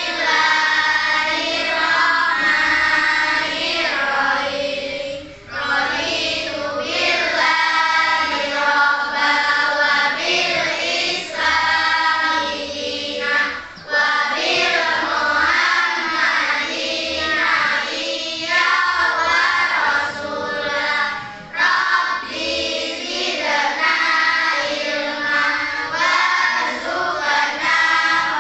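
A group of voices singing together in choir fashion, holding long sustained notes, with short breaks between phrases.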